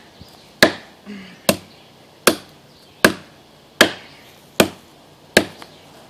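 A Cuma battle cleaver chopping into a standing pine trunk: seven sharp blade-on-wood strikes at a steady pace of about one every 0.8 s, cutting a felling notch.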